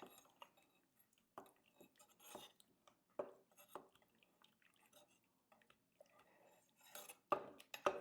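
Faint, sporadic knocks and clinks of a pestle stirring a wet, chunky sauce in a mortar, with a cluster of louder knocks near the end.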